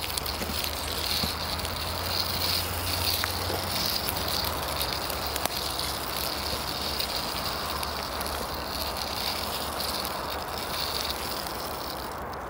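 Small toy car pushed by hand over the forest floor, its wheels rolling with a continuous crackling rustle over leaves and twigs.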